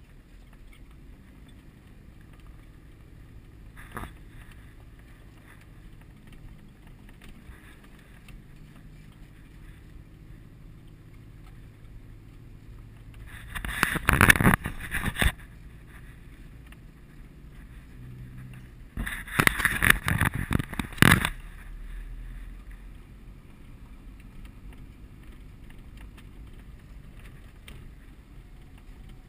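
Off-road vehicle's engine running steadily at low speed, heard from inside the cab on a rough dirt track. There is a single knock about four seconds in, then two loud spells of rattling and banging from the cab, around the middle and again a few seconds later.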